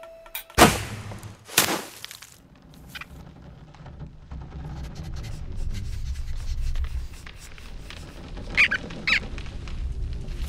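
Cartoon sound effects: two sharp snaps about a second apart as a wooden bow is shot, then a rustling noise that slowly swells, and two short high squeaks near the end.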